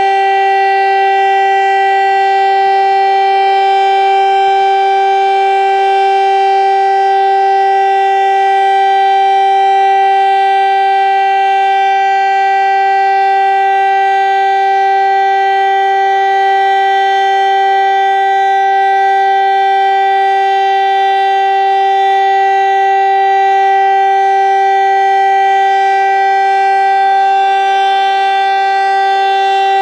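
VEM Grünhain DS977 electric motor-driven siren sounding a loud, steady tone of about 384 Hz with many overtones, held at full speed without rising or falling: the continuous signal of a siren test.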